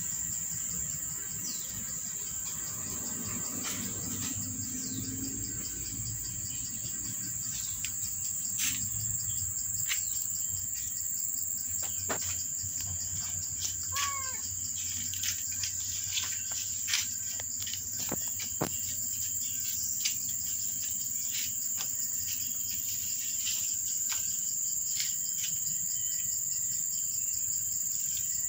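Steady high-pitched insect chorus, like crickets, running without a break, with scattered short clicks and chirps over it.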